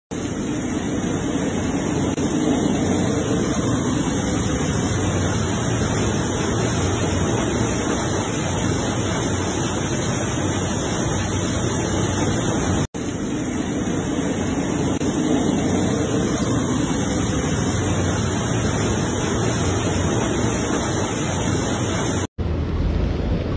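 Steady, loud hiss of heavy rain. It drops out briefly twice, and after the second break, near the end, a lower rumble takes over.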